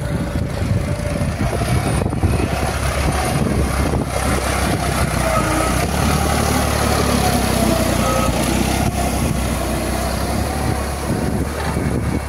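Diesel farm tractor engine running steadily under load as it pulls a tine cultivator through crop stubble.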